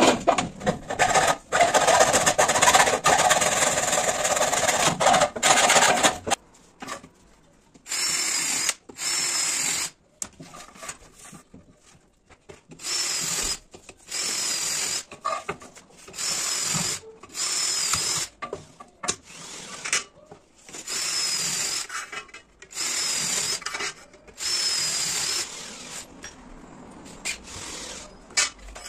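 Hacksaw cutting through an aluminium sliding-door track in quick strokes for about six seconds. Then a cordless drill runs in about ten short bursts of roughly a second each, mostly in pairs, drilling holes through the aluminium track.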